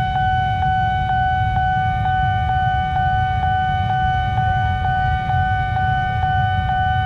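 Railway level-crossing warning alarm sounding continuously: a steady high electronic tone with a faint click about twice a second, over a low rumble of waiting traffic.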